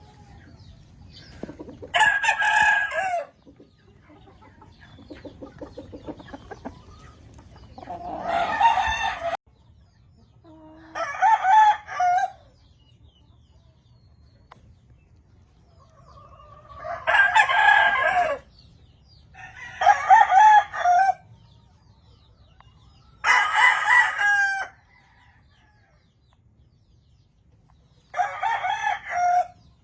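Gamefowl roosters crowing: seven separate crows, each about a second long, at irregular gaps, with softer clucking between the early crows.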